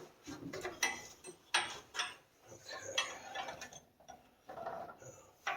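Copper pipe, coupler and shut-off valve being handled and fitted together: irregular metal clicks, taps and short scrapes.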